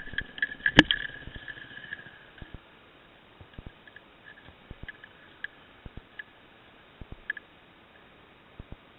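Yamaha WR250F four-stroke single-cylinder dirt bike engine running at idle, then stopping about two seconds in. Scattered faint clicks follow.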